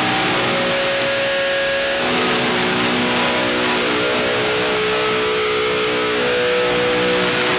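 Live heavy rock band playing: distorted electric guitars hold long sustained notes over a dense, steady wash of sound.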